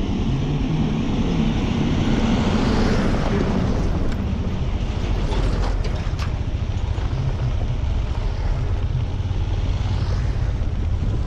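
Motorcycle engine running while riding over a rough, dusty dirt road, mixed with wind rush over the microphone. A few faint knocks come about five to six seconds in.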